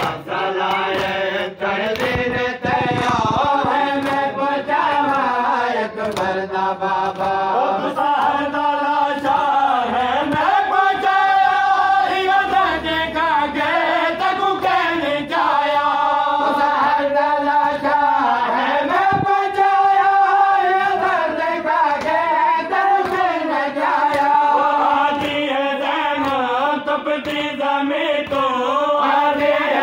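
Men's voices chanting a slow, melodic Muharram devotional recitation, with long held notes that glide up and down.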